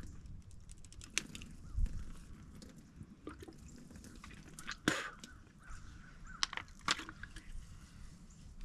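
Scattered clicks and knocks, with a few short, harsh animal calls about five seconds in and again near seven seconds.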